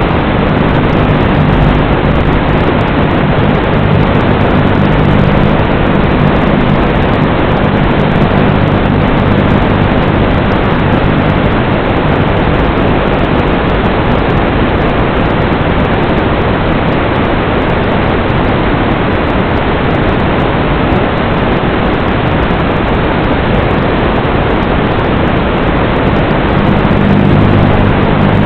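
FPV drone's motors and propellers running, heard as a loud steady hiss with a low hum. The hum is strong at first, fades about ten seconds in and comes back near the end.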